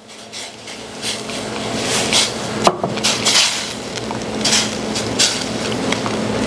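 Silicone spatula stirring and whipping a starch slurry into simmering sauce in a stainless steel saucepan, in repeated scraping strokes, with one sharp knock against the pan a little over two and a half seconds in.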